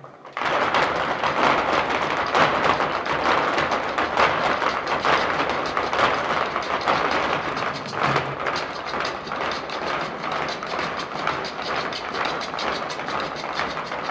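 A troupe of folk dancers stamping a fast zapateado in hard-soled shoes on wooden boxes, a dense clatter of taps with no music, with a brief break about eight seconds in.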